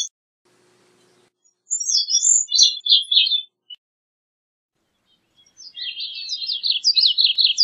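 Gray-cheeked thrush singing: two high phrases, the first about two seconds in tumbling downward in pitch, the second near the end a fast run of short rising notes.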